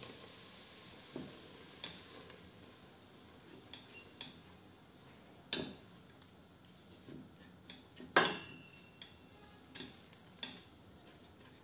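Spatula stirring flour into butter, onion and garlic in a stainless steel stockpot, toasting the flour, with a faint sizzle. Scattered knocks and scrapes of the spatula on the pot; the loudest come about five and a half and eight seconds in, the second with a short ring.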